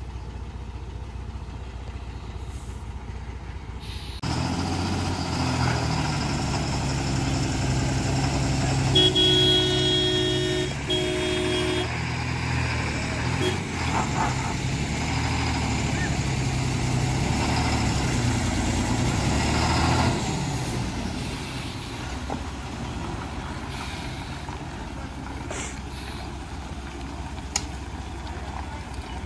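Heavily loaded lorry's diesel engine running loud as it works round a hairpin bend, easing off about twenty seconds in. A vehicle horn sounds twice, two held toots about nine and eleven seconds in.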